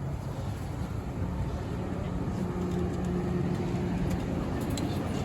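A vehicle running: a steady low rumble, with a faint steady hum through the middle.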